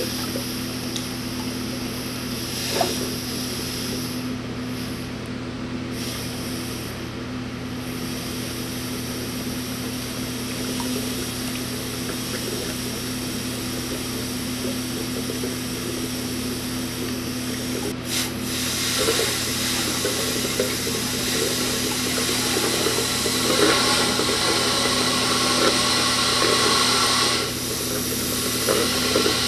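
Compressed air forced through a snowmobile's cooling system, pushing the last coolant out of the drain hose into a bucket of coolant. After a quieter stretch, the hose outlet starts gurgling and bubbling into the bucket about two-thirds of the way in, and the sound gets louder from there.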